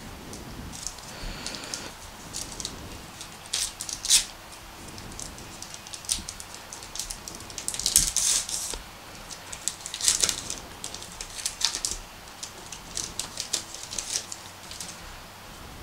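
A trading-card pack's wrapper being torn open and crinkled by hand, with the cards slid out of it: a string of sharp crackles and rustles, the busiest bursts about eight and ten seconds in.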